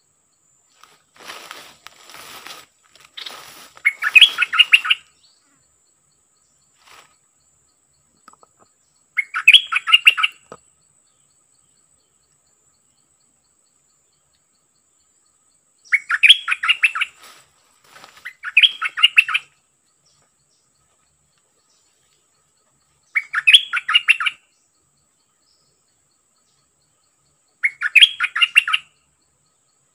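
Caged decoy bulbul calling: six loud bursts of quick, repeated chattering notes, each about a second long, several seconds apart. Brush rustles in the first few seconds.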